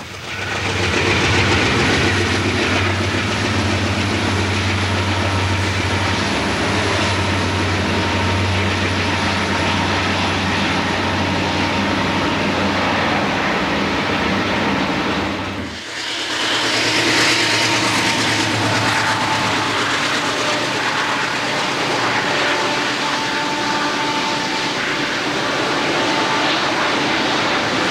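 Diesel freight locomotives working past with a steady low engine drone. After a cut about sixteen seconds in, a train of loaded coal hoppers rolls by with wheel-and-rail noise.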